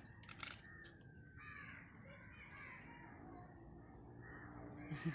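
Faint bird calls, a few harsh calls heard for about three seconds starting a second and a half in.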